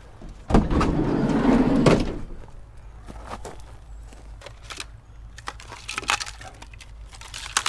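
Loud scraping rattle lasting about a second and a half, then scattered knocks and clicks: junk being dragged and handled while a kerbside pile of hard rubbish is searched.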